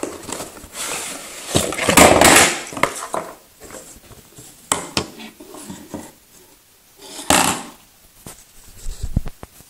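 Handling noises while unboxing a battery charger: rustling and scraping of packaging with sharp clicks and knocks of hard objects, loudest about two seconds in and again near the end.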